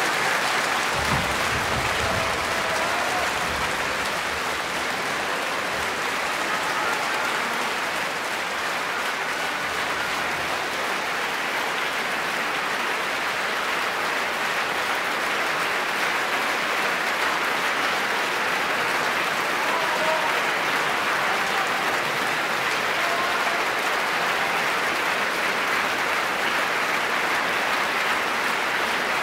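Large concert audience applauding, a dense, even clapping that holds steady throughout.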